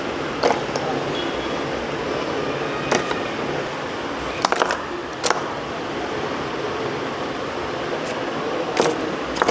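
A handful of short sharp clicks and taps from slate pencils and their box being handled, a few seconds apart with a quick double click near the middle, over a steady background hum.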